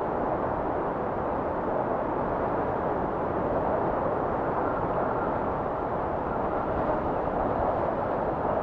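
Wind blowing steadily: a dull, even rush without gusts or breaks.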